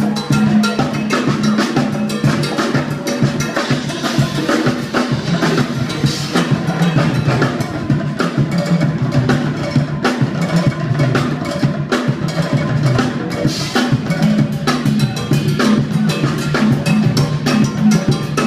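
Drum kit played fast and busily, with rapid snare strokes, rimshots and bass drum, over steady low sustained notes from the band.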